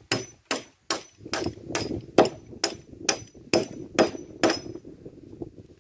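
A hammer driving a nail into a wooden plank: about ten even strikes at roughly two a second, each with a short metallic ring, stopping about four and a half seconds in.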